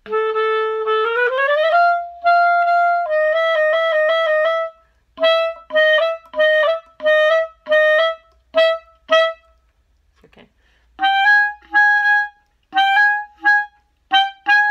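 A B♭ clarinet being play-tested after a repad and regulation, checking that the new pads seal and the notes speak clearly. It plays a low note that runs up into a held note, then a string of short detached notes, and after a pause of about a second and a half more short notes a little higher.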